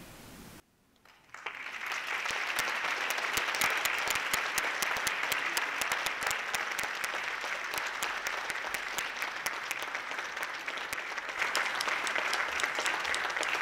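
Audience applauding, breaking out about a second and a half in after a moment of near silence and going on steadily.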